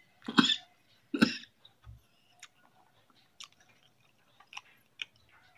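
A man coughs twice, about a second apart, near the start. Faint mouth clicks and chewing noises follow.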